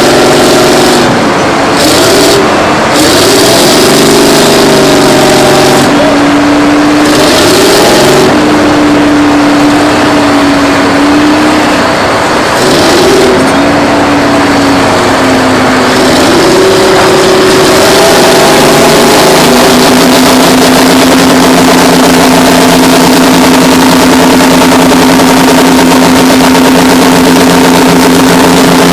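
Twin Detroit Diesel 6-71N two-stroke diesels of a Terex 82-80 crawler bulldozer working under load while pushing a scraper. The engine note rises and falls repeatedly, then settles into a steady held pitch for the last third.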